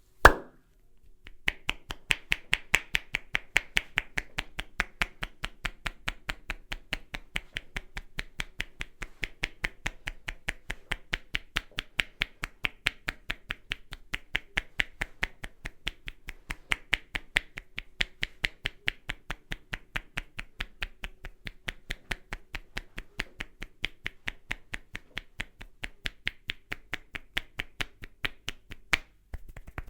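Head massage percussion: one sharp crack, then a steady, fast rhythm of short hand strikes on the head, several a second, that stops just before the end.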